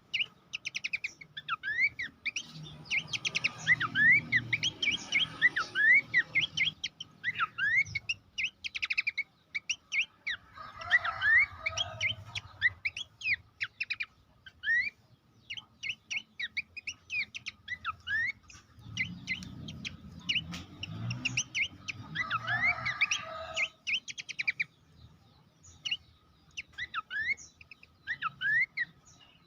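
Pelanduk semak (Horsfield's babbler) calling in fast, dense runs of short rising chirps, broken by a few rougher, lower-pitched passages.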